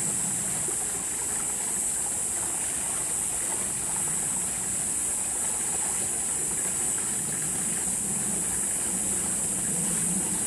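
Steady background noise with a constant high-pitched hiss over a low hum, and no distinct events.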